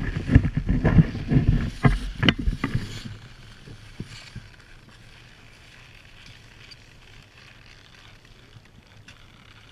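Irregular knocks and low rumbling on an action camera's microphone, the noise of wind buffeting and gear handling, lasting about three seconds before dropping to a faint steady wind hiss.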